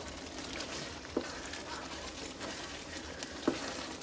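A wooden spoon stirring thick goulash of elbow macaroni, ground beef and tomato sauce as it simmers in a skillet, cooking off its liquid to thicken, with two knocks of the spoon against the pan, about a second in and again near the end.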